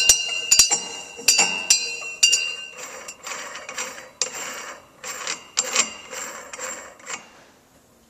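Brass bell of a Lunkenheimer steam whistle tapped by hand over and over at an irregular pace, the first taps ringing with clear bell-like tones, the later ones duller knocks; the taps stop near the end. No steam is blowing it, so there is no whistle tone.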